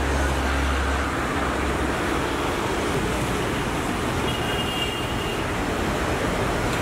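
Steady road traffic noise, with the deep rumble of a passing vehicle in the first second or so.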